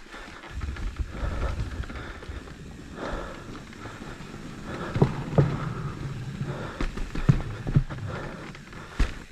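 Mountain bike rolling down a rough dirt forest trail: a steady low rumble with sharp knocks and rattles as the wheels hit roots and rocks, clustered about halfway through and again a couple of seconds later.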